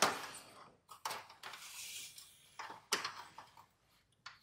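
Thin aluminum trailer siding handled on a wooden workbench: a sharp clatter at the start, then a few light knocks, and a soft scrape in the middle as one piece of sheet is slid over another to line it up.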